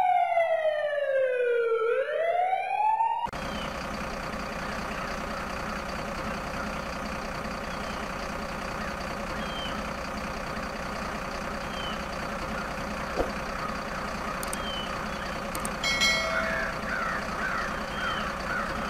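A toy fire truck's electronic siren wails, its pitch falling and then rising once, and cuts off suddenly about three seconds in. After that comes a steady outdoor hiss with faint chirps every couple of seconds, and a cluster of short chirping calls near the end.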